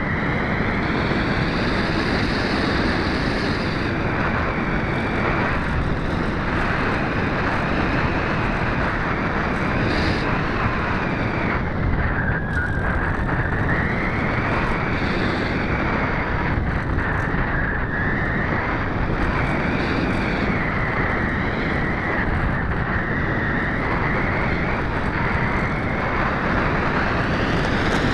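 Steady in-flight noise of a Multiplex EasyStar II RC plane as picked up by a camera mounted on its fuselage. The pitch of the noise wavers slowly up and down.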